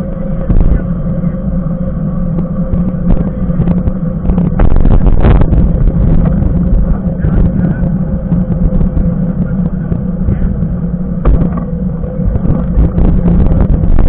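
Mountain bike in motion on asphalt, heard from a handlebar-mounted camera: a steady low rumble of wind on the microphone and the knobby tyre rolling on the road, with scattered knocks and rattles. The rumble surges louder about five seconds in and again near eleven seconds.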